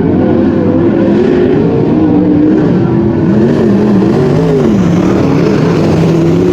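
Several wingless sprint car engines racing together. Their overlapping pitches rise and fall as the drivers accelerate and lift around the track.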